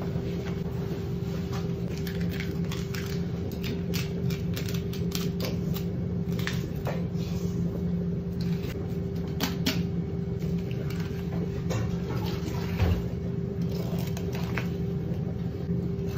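Knife clicking and scraping against a large tuna's rib bones as the loin is cut away, irregular sharp ticks over a steady machine hum.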